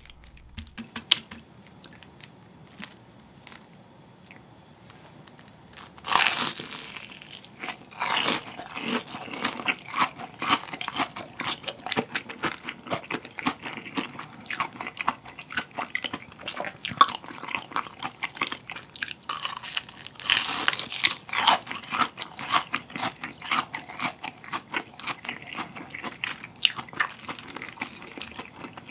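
Crispy breaded fried jumbo shrimp being bitten and chewed. The first loud crunching bite comes about six seconds in and another about two seconds later, followed by steady crunchy chewing, with a second big bite about two-thirds of the way through.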